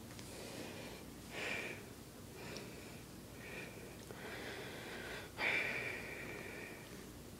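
Soft breaths and sniffs close to the microphone: a few short ones, then a louder one about five and a half seconds in that fades over a second or so.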